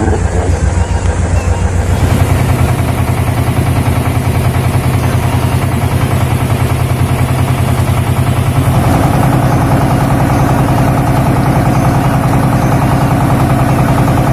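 Motorboat engine running steadily with a fine regular pulse; its note steps up about two seconds in and again about nine seconds in, as the boat gets under way across the water.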